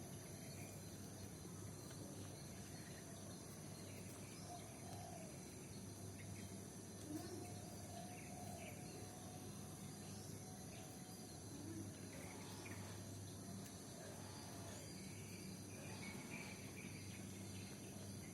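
Faint outdoor ambience: a steady insect drone with high, unbroken tones over a low hum, and scattered faint bird chirps.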